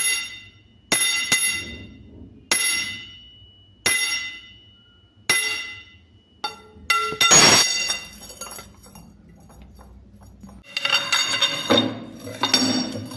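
Steel rods struck one at a time, each strike ringing out with a bright metallic tone, about every second and a half. Then comes a quick cluster of hits, and about two-thirds of the way through, continuous clanking and ringing of metal knocking together.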